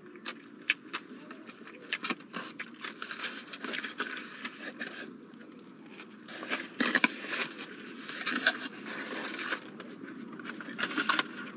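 Chewing and the crinkle and scrape of a cardboard Big Mac box being handled while the burger is eaten, in irregular crackly clicks, with several louder bursts in the second half.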